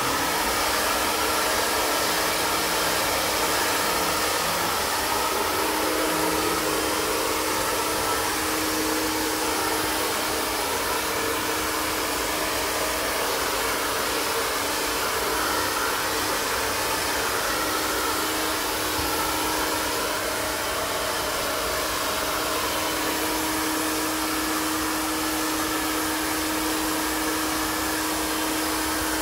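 iTeraCare terahertz health blower, a handheld hair-dryer-like device, running steadily: an even rush of blown air with a constant hum underneath.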